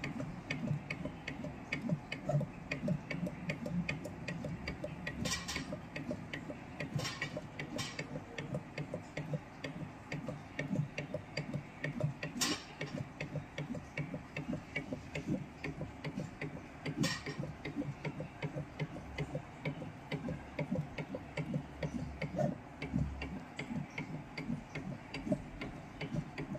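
Automatic soldering machine at work: a fast, even ticking from its mechanism, with a few sharper clicks now and then.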